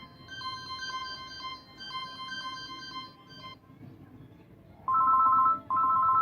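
A mobile phone's electronic tones: a short repeating ringtone melody of pure beeps, then two loud two-note beeps near the end.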